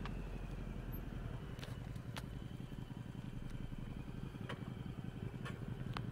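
Yamaha Drag Star 1100's air-cooled V-twin engine running at low revs with a steady low pulsing as the motorcycle rolls slowly. A few faint clicks sound over it.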